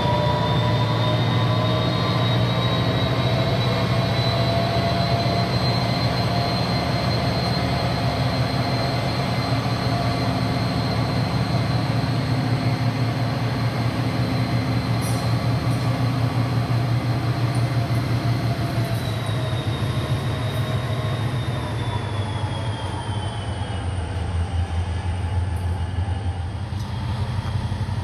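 Freight diesel locomotives running as they move slowly away along the track, their engines making a steady low rumble. Over it runs a steady high-pitched squeal that dips lower in pitch about three quarters of the way through.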